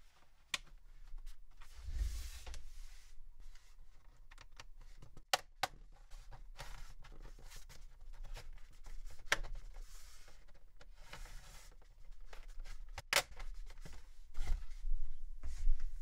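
Snap-in plastic clips of a laptop's bottom cover clicking loose one after another as a plastic pry tool works along the seam, with scraping of the tool and plastic case and a few dull handling bumps between the clicks.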